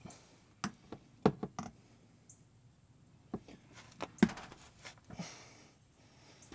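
Scattered sharp clicks and knocks, the loudest about four seconds in, with a brief rustle a second later: handling noise as a hand reaches up to the oil drain valve and hose under the pickup.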